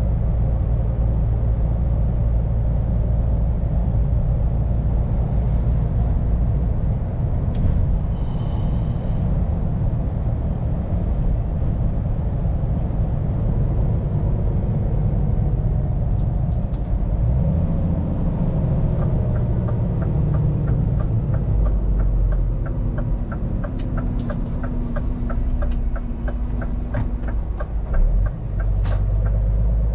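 Scania P410 truck's diesel engine running steadily, heard from inside the cab, its pitch rising about halfway through as it pulls. In the second half the turn indicator ticks evenly, about two a second, and there is a single short knock near the end.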